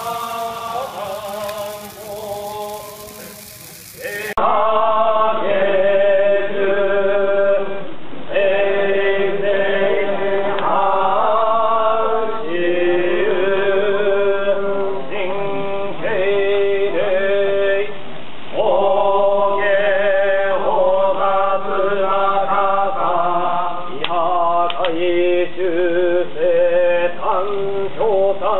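Yamabushi (mountain ascetic monks) chanting in unison, male voices holding long droning notes with brief breaks. About four seconds in the chanting suddenly gets louder and more muffled.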